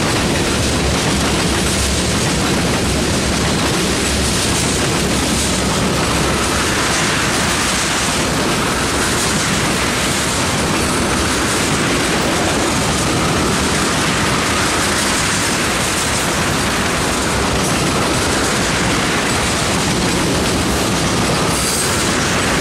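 Freight train of tank cars rolling past close by at speed: a steady, loud noise of steel wheels running on the rails, with a faint wavering whine above it from a few seconds in.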